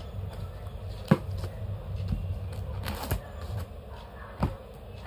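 Knife slitting the packing tape on a cardboard box, with a few short sharp taps and scrapes, the loudest about a second in, over a steady low hum.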